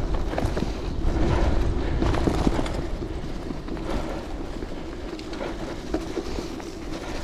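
Bicycle rolling over gravel, with tyre crunch and frame rattle ticking irregularly and wind rumbling on the microphone.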